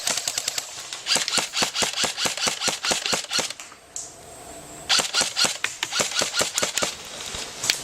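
Airsoft rifle firing strings of rapid shots, a sharp clicking rattle, in two volleys of about three seconds each with a pause of about a second and a half between them.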